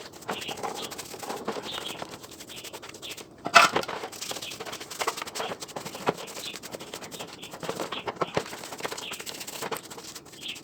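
Scattered clicks, taps and scrapes of hand work on chainsaw parts, with one louder clatter about three and a half seconds in.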